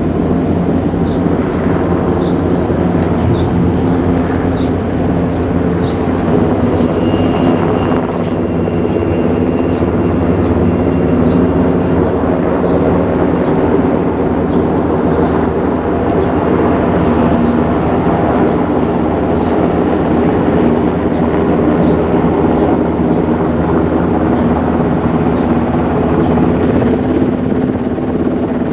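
Helicopter circling overhead: a steady, loud drone of rotor and engine that holds on without letup, with faint short high ticks over it.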